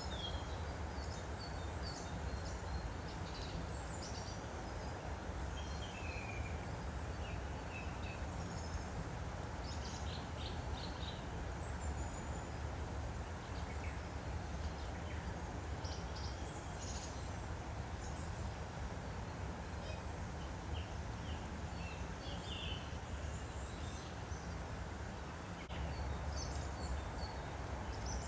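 Woodland stream flowing steadily, with scattered short bird chirps and calls over the water.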